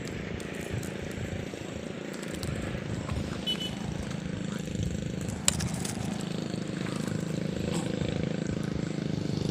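A motor engine running steadily, growing a little louder toward the end, with one sharp click about five and a half seconds in.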